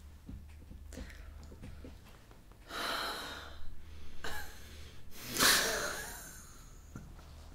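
A woman laughing helplessly in short, breathy bursts, mostly breath rather than voice, stifling a fit of giggles. There are three bursts, the loudest a little past halfway.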